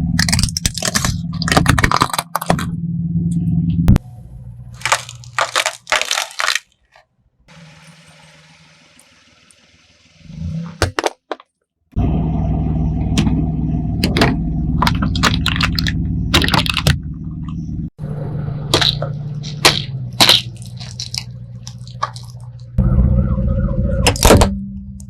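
A car rolls slowly over objects, its engine and tyres making a low rumble, as things crack and break under the tyres in a series of sharp cracks and crunches. The sound cuts off and restarts abruptly several times, with a quieter stretch with only faint hiss near the middle.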